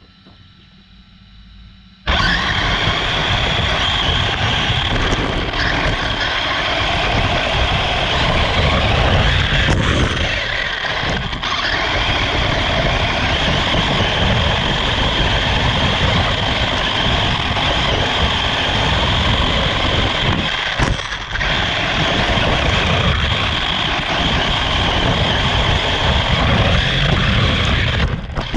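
RC car driving: a loud, steady rushing and rumbling noise with a steady high whine, starting suddenly about two seconds in.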